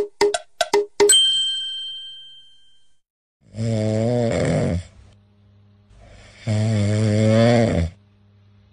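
Two long snores, each a bit over a second, about three seconds apart. Before them comes a quick run of short plinking notes that ends about a second in on a ringing ding, which fades over about two seconds.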